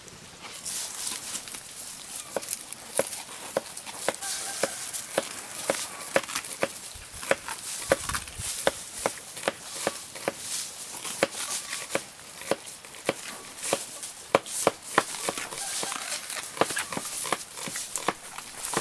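Large cleaver-like knife chopping onions on a wooden cutting board: a steady run of sharp knocks, about two a second.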